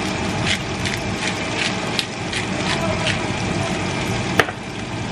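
Beef chuck roast searing in a hot Dutch oven: a steady, loud sizzle full of small crackles and pops, with a sharp knock of a utensil or the pot about four seconds in.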